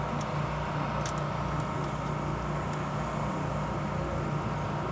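Steady low mechanical hum in the background, with a few faint clicks from an Allen key working the motorcycle's lower triple clamp bolts.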